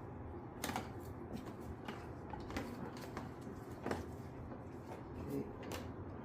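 Scattered light clicks and rustling from handling tail-light wiring and plastic parts while the wires are fed through a hole, over a steady low hum.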